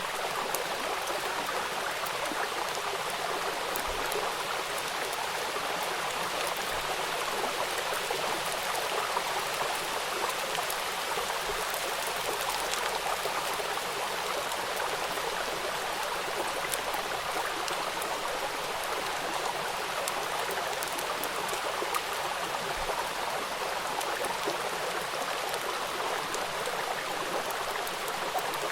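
Steady rain falling, a dense hiss of many drops with small individual drop ticks.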